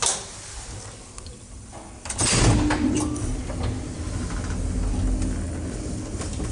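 A switch clicks, then about two seconds in the KMZ-58 lift starts off with a sudden jolt and runs on with a steady low rumble and a faint hum from its drive as the cab travels the shaft with its doors open.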